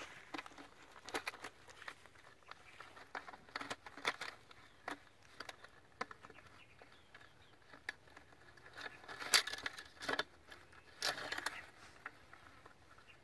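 Irregular light clicks and scrapes of a slatted funnel grate being pressed and fitted into the mouth of a PVC pipe by hand, with a couple of longer rustling scrapes about two-thirds through.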